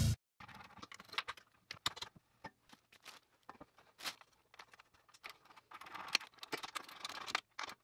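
Scattered light clicks and clinks of tools and hardware during a slip-on muffler install, some in quick clusters, with gaps of silence between them and a busier patch near the end.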